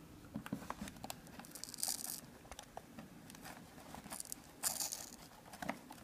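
Rubber base pad of an AirPort Time Capsule being peeled off its glue with a butter knife: faint crackly tearing of the adhesive in two short spells, about two seconds in and again about five seconds in, with small scattered ticks between.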